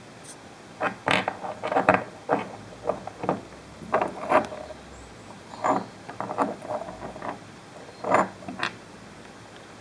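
Small fragments of V2 rocket scrap metal being handled: irregular clinks, taps and rattles as pieces knock against each other and are picked up and set down.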